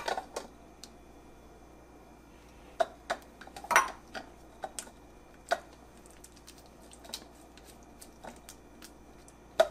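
Silicone spatula scraping and tapping chopped tomatoes out of a plastic chopper basket into a glass bowl: scattered soft clicks and knocks, the loudest a little under four seconds in.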